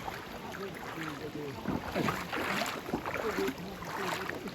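Mountain stream water rushing and splashing, with faint indistinct voices in the background.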